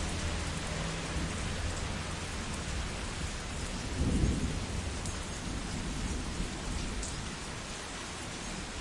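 Steady rain falling, with thunder rumbling low under it. About four seconds in, a louder thunder burst swells and then rolls away, leaving only the rain hiss near the end.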